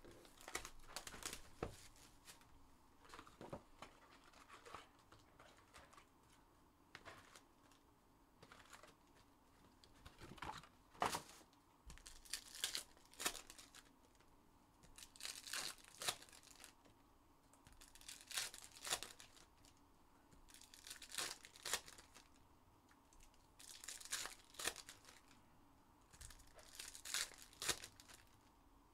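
Foil trading-card packs from a Panini Donruss Optic basketball hobby box being torn open and crinkled by hand, in short bursts of ripping and rustling every few seconds.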